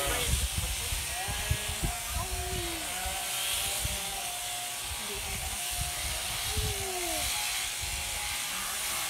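Electric sheep-shearing clippers buzzing steadily through fleece, with sheep bleating several times in the background. Short low knocks of the sheep being handled, loudest in the first two seconds.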